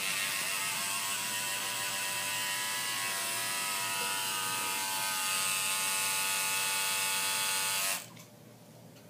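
Electric tattoo machine buzzing steadily at an even pitch, then switched off abruptly about eight seconds in.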